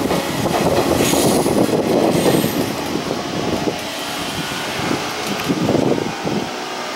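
Izukyu 8000-series electric train running along the elevated viaduct as it arrives at the station. A brief high squeal sounds between about one and two seconds in, and the running noise then eases off.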